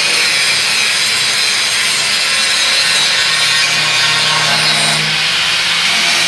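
Angle grinder running steadily against a steel workpiece, grinding the surface clean and smooth to prepare it for welding.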